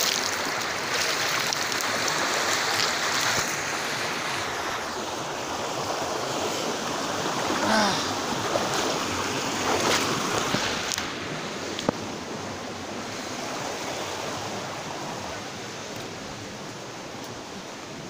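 Shallow creek rushing over rocks: a steady hiss of flowing water that slowly fades in the second half.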